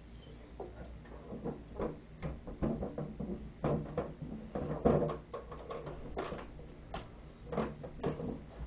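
Plastic pet-door flap knocking and rattling in its frame as a pet squeezes through the small opening, with irregular clicks and scuffs, loudest about five seconds in.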